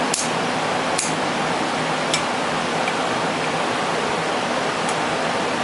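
Steady background hiss with a faint low hum, and a few faint small clicks of metal parts and a trigger pull gauge being handled on a 1911 pistol frame.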